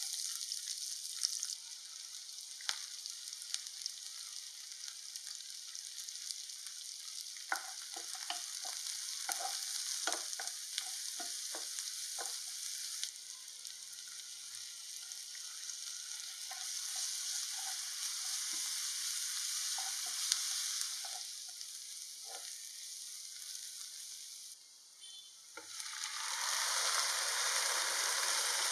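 Chopped shallots sizzling in hot oil in a nonstick pan, with a spatula clicking and scraping against the pan as they are stirred. Near the end the sizzle grows louder and fuller, with mutton pieces frying in the pan.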